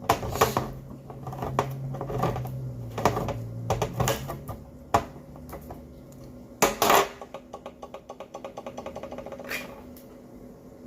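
A can opener working its way around a can of cream of chicken soup: a string of clicks and knocks, then a fast, even run of ticks in the second half.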